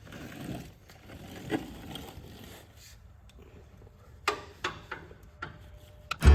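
A few separate metal clicks and light scraping of a socket and ratchet working on the mower deck's fasteners. Music with guitar starts at the very end.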